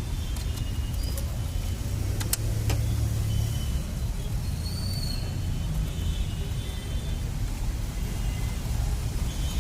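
Steady low rumble of a running motor vehicle, with a few sharp clicks in the first three seconds.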